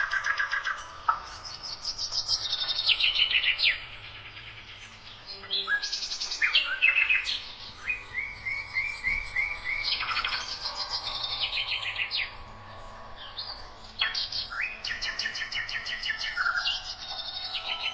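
Songbird song: quick trills and runs of chirps in bouts of a few seconds, with short pauses between them, including a run of about five evenly spaced repeated notes in the middle.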